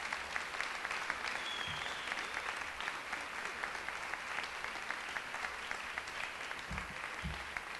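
Audience applauding, a dense steady clapping of many hands that eases slightly near the end. Two soft low thumps come near the end.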